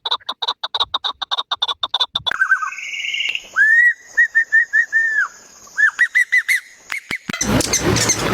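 Bird calls that change abruptly several times. First comes a fast run of rapid pulsed notes, then a series of short, arched whistled notes a few per second. Near the end a dense burst of chirping takes over.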